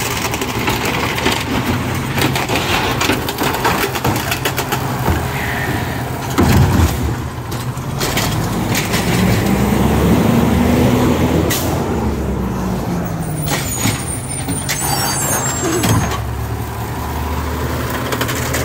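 Recycling garbage truck's diesel engine running, revving up and back down over a few seconds near the middle, with knocks and clatter and a couple of louder thumps.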